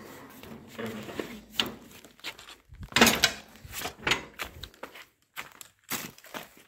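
Scattered clunks, knocks and short rustles of hands working around the tractor, with no engine running. The loudest knock comes about three seconds in.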